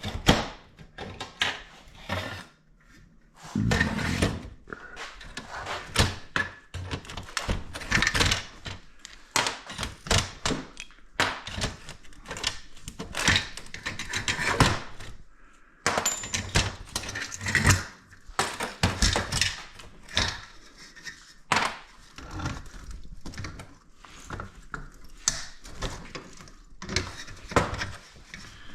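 Scrap metal being handled: a long run of irregular knocks, clanks and thunks as pieces are moved and dropped.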